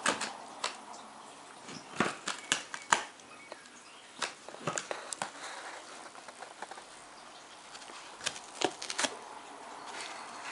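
A Jack Russell terrier pawing and scratching at a taped cardboard box: irregular clusters of sharp scratches and clicks on the cardboard with quieter gaps between.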